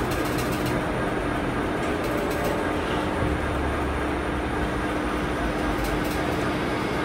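Steady dark rumbling drone with a low held hum, a horror-film ambience; the deep rumble swells from about three seconds in and eases near six seconds.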